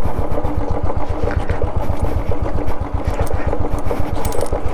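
Royal Enfield 350's single-cylinder engine running at low revs, a steady, rapid, even beat of exhaust pulses, as the motorcycle starts down a steep, rough dirt track. Scattered light clicks sound over it.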